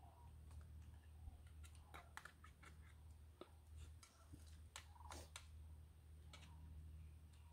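Near silence with faint scattered clicks and light taps, a metal spoon against a small metal cup as food is eaten from it, over a low steady hum.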